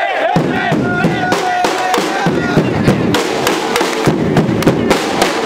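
Street band of drums playing a fast, dense rhythm of sharp strokes, with a few brief held notes in the first couple of seconds and crowd voices underneath.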